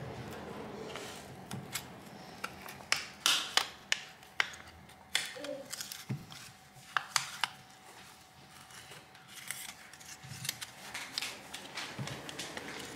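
Thin metal pry tool working around the edge of a Samsung Galaxy S20 FE's plastic back cover, with an irregular run of sharp clicks and snaps as the cover flexes and the factory adhesive is released.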